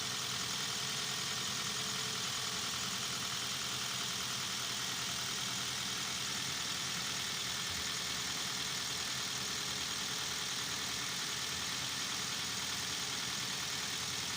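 Toyota Avanza's K3 inline-four engine idling steadily, with no rise or fall in revs, just after a cylinder head job and belt adjustment, being listened to for the noise it made before the repair.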